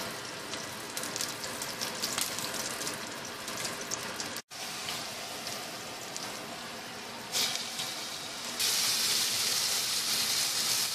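Hot oil sizzling and crackling in a cooking pot as sliced onion and then chicken pieces fry. The sizzle cuts out for an instant partway through, then grows louder and brighter toward the end as the chicken browns.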